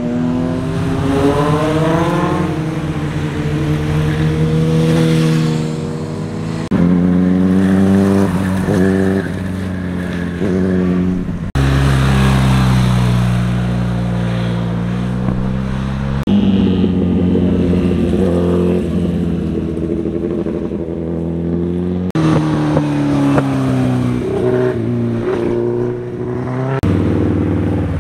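Motorcycles passing one after another on a winding road, each engine rising and falling in pitch as the rider accelerates out of the bends and changes gear. The engine sound changes abruptly five times, from one bike to the next.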